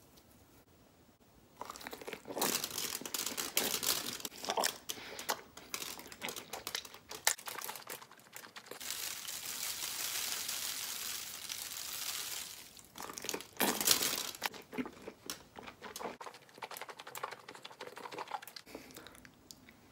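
Squelching, crackling and tearing as a red, sticky food is squeezed and pulled apart by hand. From about 9 to 13 seconds a steady hiss while something is poured over it from a bottle, then more crackling handling and faint ticks near the end.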